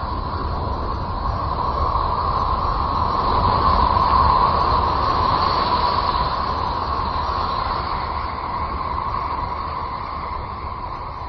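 Electromagnetic emissions from the planet Uranus converted into sound: a steady rushing rumble with a hazy whistling band in the middle, swelling about four seconds in and then slowly easing off.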